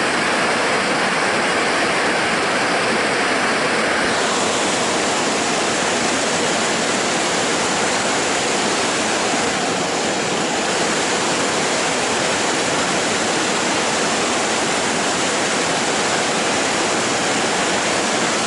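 River rapids rushing steadily over rocks, a loud continuous wash of whitewater. The tone shifts slightly about four seconds in.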